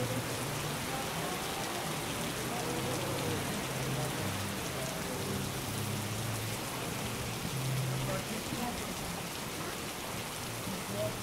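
Pouring rain falling steadily and pattering on wet walkways.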